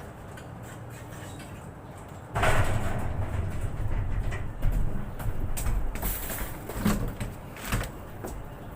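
A vehicle rumbling, suddenly louder about two seconds in, with irregular clanks and rattles over the rumble.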